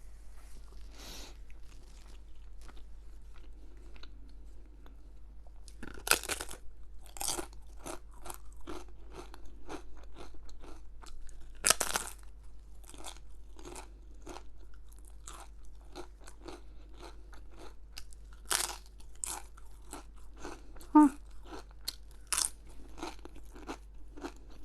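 A person chewing crunchy food, with many small crackles and a few louder crunching bites about six, twelve and nineteen seconds in.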